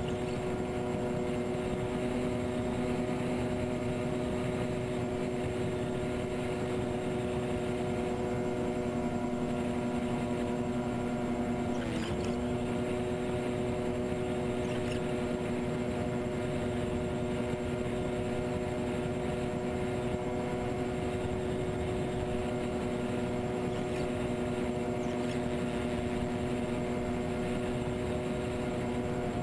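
The twin electric motors and propellers of a TwinStar RC model plane running steadily in flight, heard from the onboard camera as a steady multi-tone hum over rushing air. The pitch dips briefly about twelve seconds in, as the throttle eases, then settles back.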